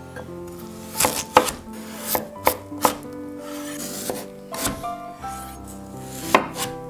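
Chef's knife cutting raw potatoes into wedges on a wooden cutting board: a string of irregular knife strikes through the potato onto the board, the loudest about a second and a half in and again near the end. Soft music with held notes plays underneath.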